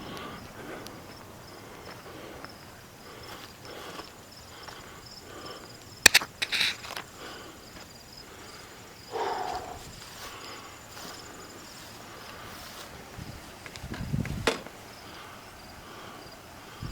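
Footsteps outdoors, with insects chirping in a steady pulsing trill in the background. A sharp clatter of clicks about six seconds in is the loudest sound, and there are short rustles later on.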